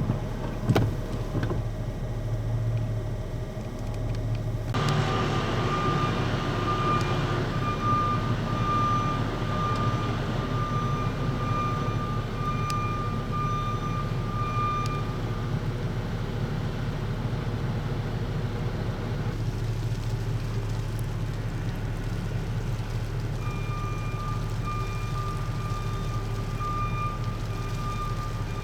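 Car driving, with steady road and tyre noise that grows louder about five seconds in, a thin steady whine over it, and a couple of sharp clicks near the start.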